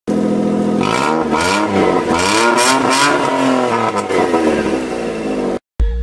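Maruti Suzuki A-Star's three-cylinder petrol engine revved repeatedly through an aftermarket exhaust with a Borla end can, its pitch rising and falling with each blip. It cuts off abruptly near the end.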